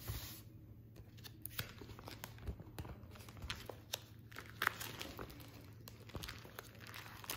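Clear plastic sheet protectors in a ring binder crinkling and rustling faintly as the pages are handled and turned, in soft scattered crackles.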